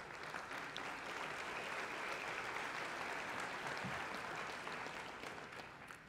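Audience applauding in a hall, a steady clapping that dies away near the end.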